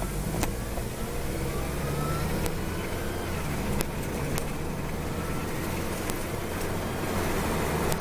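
2004 Acura TSX running, with a faint whirring whine from its automatic transmission over the steady engine note; the whine rises in pitch a couple of times. The owner is unsure of the cause, and commenters suggest the torque converter.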